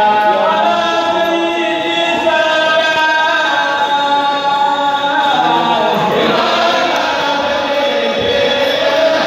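A kourel, a Mouride men's chanting group, singing a khassida together in unaccompanied chorus, with long held notes.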